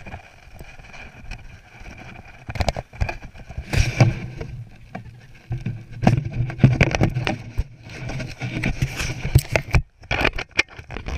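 Wind rumble and rubbing on a body-worn action camera's microphone as the wearer moves about, with scattered knocks and thumps; the rumble is strongest in the middle.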